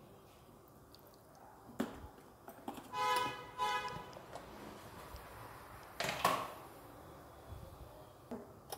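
Quiet handling of steel kitchen containers: a few sharp clicks and knocks, with one short pitched squeal just under a second long about three seconds in.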